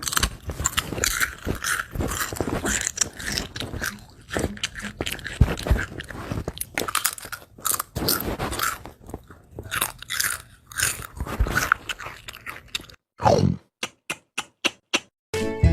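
Crunchy chewing and biting sound effects: a long run of crackly crunches and chomps. Near the end a short falling tone, then a quick series of about eight sharp separate chomps.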